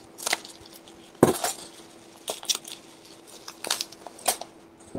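Small plastic action-figure parts and plastic packaging being handled: about six sharp clicks, clinks and crinkles spread over a few seconds, the loudest a little over a second in.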